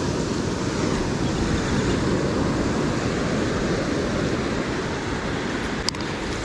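Steady rush of ocean surf with wind buffeting the microphone. A single sharp click comes about six seconds in.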